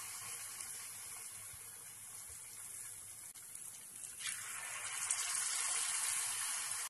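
Batter-coated boiled egg pieces deep-frying in hot oil with a steady sizzle. The sizzle grows louder about four seconds in, as another piece is lowered into the oil.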